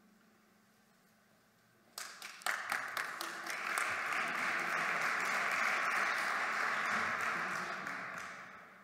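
Audience applauding: after about two seconds of near silence a few scattered claps start, building into steady applause that dies away near the end.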